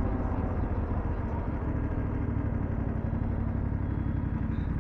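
BMW F750GS parallel-twin motorcycle engine running through its aftermarket Dominator exhaust while riding along, with wind and road noise. The engine note eases down slightly at first, then holds steady.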